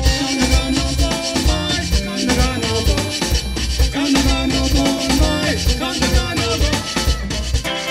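Live Caribbean string band playing a traditional song at a lively pace: fiddle melody over strummed acoustic guitar, electric bass and a steady drum and shaker beat.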